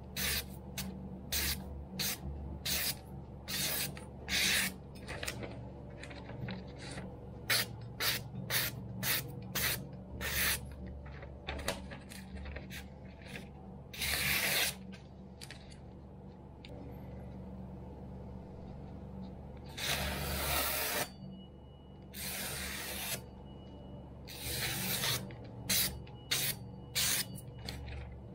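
Freshly sharpened kitchen knife slicing through a sheet of catalogue paper in a paper-cutting sharpness test: a string of short, crisp hisses, about two a second at first, then fewer and longer cuts later on.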